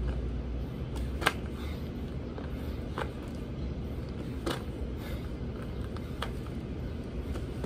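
Sharp taps about every second and a half as hands and shoes land on the pavement during burpees, over a steady low background rumble.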